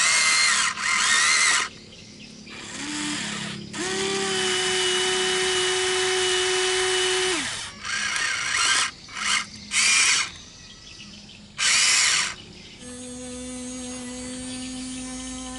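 Electric gear motors of a Huina RC excavator whirring in short, loud, high-pitched bursts as the boom, arm and bucket move. A steadier pitched motor hum runs from about four to seven seconds and again near the end.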